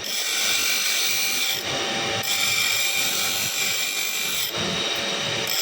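A power tool running steadily with a high-pitched whine, at a constant speed.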